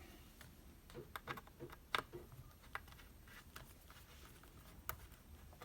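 Faint, scattered light clicks and taps of tiny metal screws being set down one by one on a magnetic screw holder, the sharpest tap about two seconds in.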